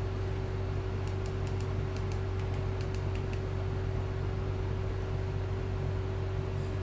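Steady electrical hum with a faint higher tone over low room noise, and a few faint clicks between about one and three seconds in.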